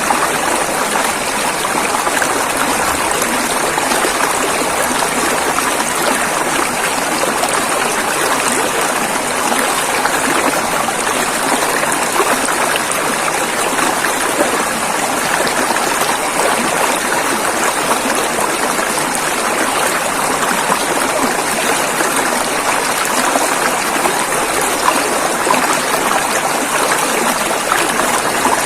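River water rushing and splashing over rocks in a steady, unbroken stream.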